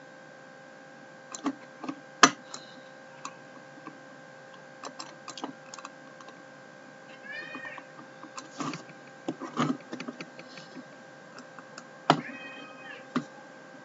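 Scattered computer mouse clicks over a faint, steady electrical whine, with two short squeaky cries, one about seven seconds in and one about twelve seconds in.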